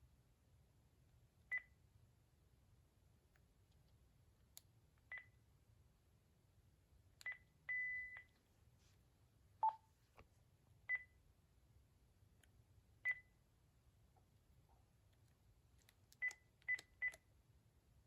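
Cordless phone handset beeping at each key press while its menu is being stepped through: short, high single-pitch beeps one to three seconds apart. One beep about eight seconds in is held longer, one just after is lower-pitched, and three come in quick succession near the end.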